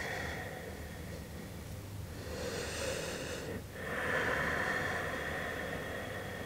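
Slow, close-miked ujjayi yoga breathing through a narrowed throat: an airy inhale about two and a half seconds in, followed by a longer, steady exhale from about four seconds in.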